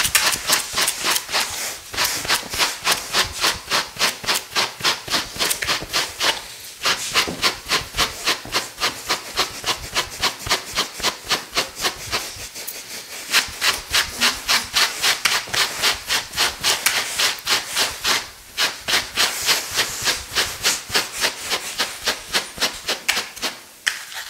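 Hand brushes stroked through the wool of tanned lambskins, quick repeated strokes about four a second, broken by a few short pauses.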